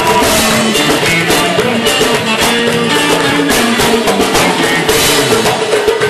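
Loud band music: a melody moving note by note over a steady drum beat, with no break.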